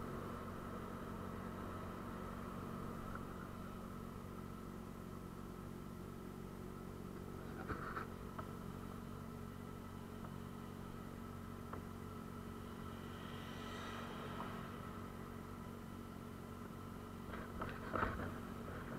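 Motorcycle engine running steadily at low revs, faint, while the bike creeps along in slow traffic. Two short clicks, one about eight seconds in and a louder one near the end.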